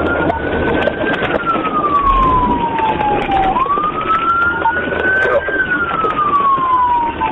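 Police car siren on a slow wail, its pitch rising and falling twice, over steady engine and road noise from the pursuing cruiser.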